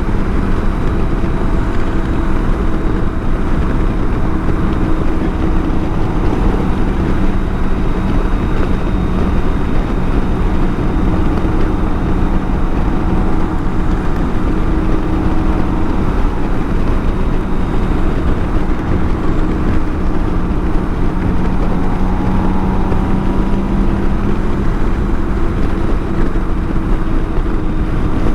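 A BMW K1600 GTL's inline-six engine running at a steady pitch under way, mixed with rushing wind and road noise.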